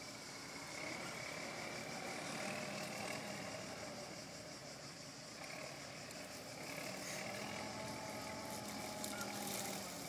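Landini 14500 tractor's engine running steadily under load as it pulls a reversible plough through the soil.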